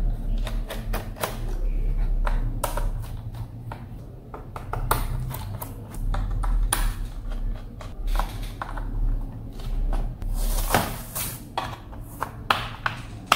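Small Phillips screwdriver working the screws on the underside of an HP EliteBook 840 G3 laptop: irregular clicks and taps of the metal tip and the plastic case, over a steady low hum.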